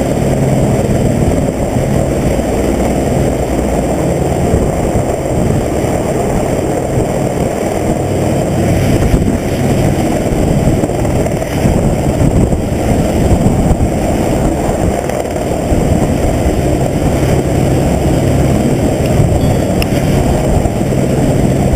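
Helicopter running: a loud, steady engine-and-rotor drone with a low hum.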